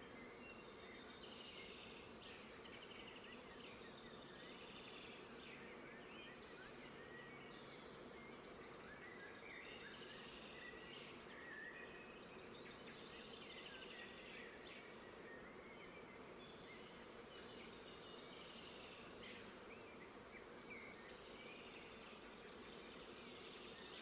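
Faint birdsong: several small birds chirping and trilling over and over, above a low steady background hum.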